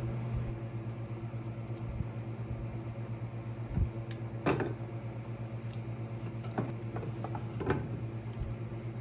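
A steady low hum with a few light clicks and knocks of tools and parts being handled, the sharpest about four and a half seconds in and again near the end.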